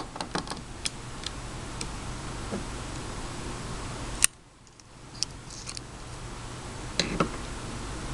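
A few sharp clicks and light taps as two closed switchblade knives are handled, with one louder click about four seconds in. A steady low hum and hiss sit underneath.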